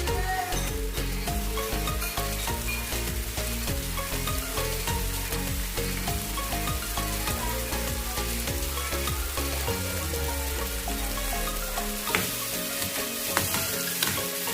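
Food sizzling in a hot oiled wok or pan while being stirred, a steady frying hiss with a few sharp scraping strokes near the end.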